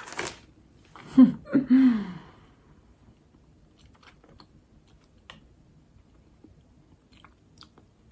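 A person chewing a hard, chewy strawberry bonbon close to the microphone. Two short hums falling in pitch come about a second in, followed by faint, scattered wet mouth clicks from the chewing.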